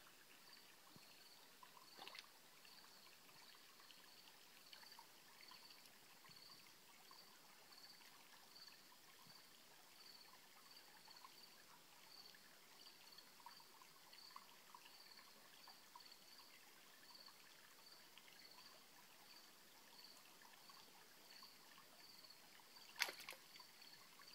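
Near silence: a faint trickle of stream water, with a faint high chirp repeating evenly about every two-thirds of a second. A single sharp click near the end.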